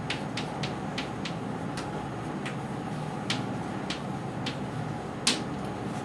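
Chalk tapping and scratching on a blackboard as words are written: a string of sharp, irregular taps, the loudest about five seconds in, over a steady room hum.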